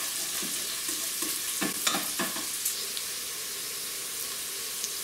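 Finely chopped onion sizzling steadily in oil in the ceramic-coated pot of a Cecotec multicooker on sear mode. A spatula stirs it, with a few short scraping strokes about two seconds in.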